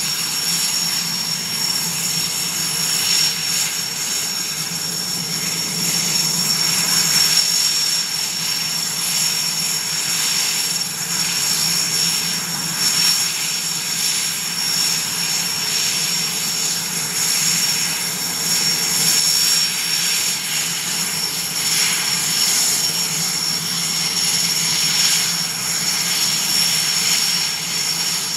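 IAR 330 Puma military helicopter running on the ground, its turboshaft engines giving a steady high whine over the rotor noise.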